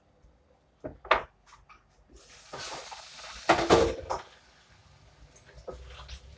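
Kitchen handling sounds: two sharp clicks about a second in, then a rushing noise lasting a couple of seconds with loud clunks in the middle of it, and a few faint knocks near the end.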